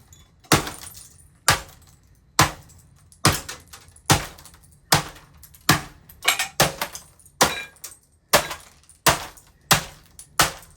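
Repeated hard blows smashing an old laptop, about a dozen sharp impacts a little more than one a second, each followed by a short rattle of breaking plastic and parts.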